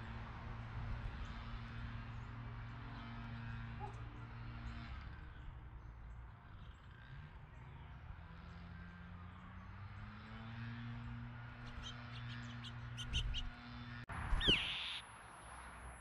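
Low steady hum of a distant motor whose pitch drifts slowly, with a few faint clicks. Near the end comes the loudest sound, a short harsh bird call that falls in pitch.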